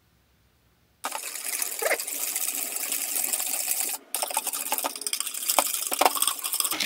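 Wire whisk beating egg whites and syrup by hand in a glass mixing bowl: a fast, steady rattle of the wires against the glass with the liquid sloshing. It starts about a second in and breaks off briefly around the fourth second.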